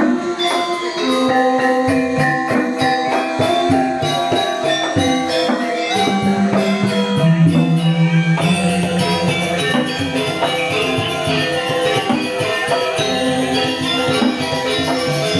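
Balinese gamelan playing: fast, ringing notes of bronze metallophones over a shimmer of small cymbals, with a deeper held gong tone coming in about six seconds in.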